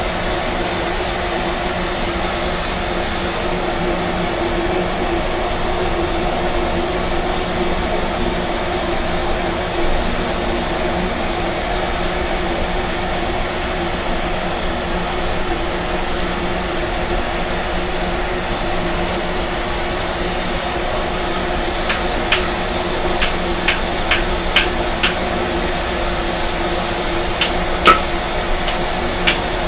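A steady mechanical noise with a faint hum runs throughout. About three quarters of the way in, a dozen or so light, irregularly spaced hammer taps on metal start, as the chisel's deformed ferrule is being reshaped.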